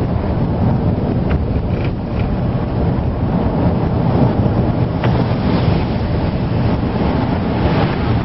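Steady wind noise buffeting the microphone over the road noise of a moving car, with a few faint ticks about a second in and again near five seconds.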